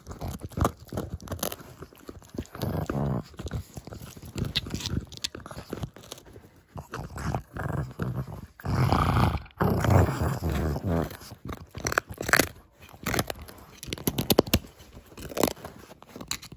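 Pug chewing and gnawing a hard dried bone chew treat: repeated crunching and clicking bites. There is a louder low stretch a little past the middle that fits her growling while she guards the chew.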